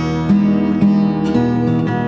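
Background music: acoustic guitar, with new plucked notes coming about every half second.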